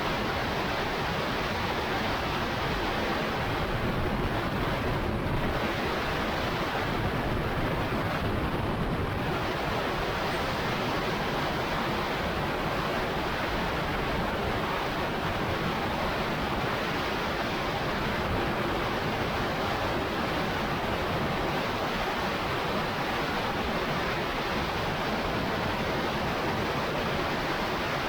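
Steady rushing wind noise buffeting the microphone in strong gusty wind, with no distinct engine tone standing out.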